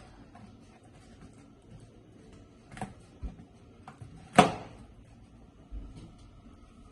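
A balloon bursting with one sharp pop and a short ring-out a little over four seconds in, among a few soft knocks of balloons being handled.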